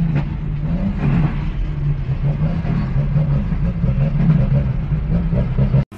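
Heavy dump truck's diesel engine running under load as it drives ahead, a steady low rumble that rises and falls slightly in pitch, heard through the windshield of a following car. The sound cuts off abruptly just before the end.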